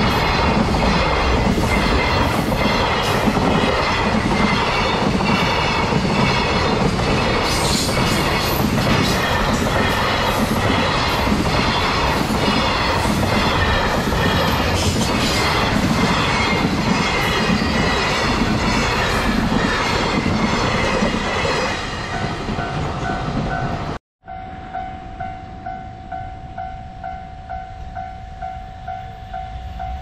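The wheels of a long container freight train clatter loudly over the rails and the level crossing at close range, with quick, regular clicks. About three-quarters of the way through, the train noise fades and a level-crossing warning bell is heard ringing in a steady pulse. After a brief silent break the bell rings on alone, quieter.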